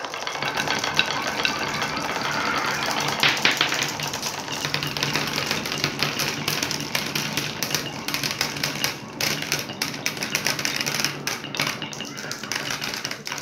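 Dozens of glass marbles rolling down grooved wooden marble-run tracks in a continuous stream, a dense clatter of clicks as they knock against each other and the wood, with a low rolling rumble underneath, and drop into a plastic tub.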